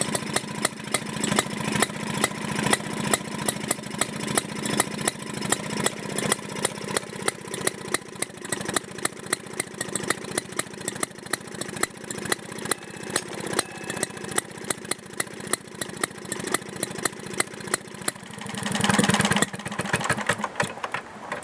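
Villiers petrol engine of a 1957 Ransomes Minor Mark 7 lawnmower running steadily with an even, ticking beat. It revs up briefly near the end, then drops away.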